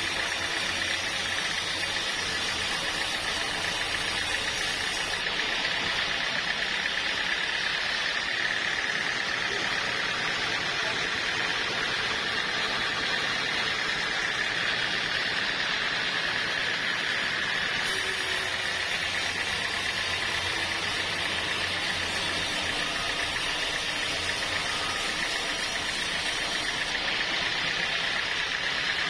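Sawmill saw running steadily, a continuous mechanical noise with a steady high-pitched whine.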